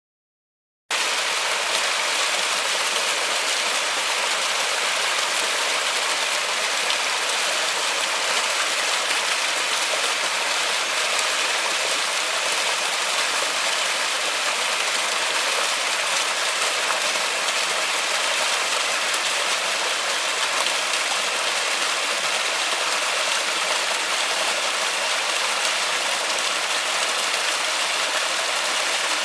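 Steady, heavy rain falling in a forest, starting abruptly about a second in after silence.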